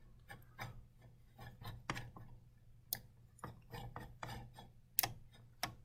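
Faint, irregular clicks and small scrapes of a computer mouse being clicked and moved on the desk, over a low steady hum.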